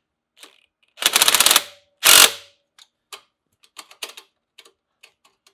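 Impact driver hammering in two short bursts, about a second and two seconds in, running down the nut on an exhaust band clamp that binds on its threads. Light metallic clicks and taps follow.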